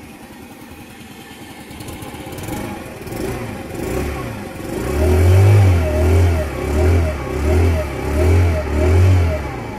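Racer Corvus 50 moped's small engine running and revved in repeated pulses. It builds from about two seconds in, then rises and falls about every 0.7 s, six times, near the end.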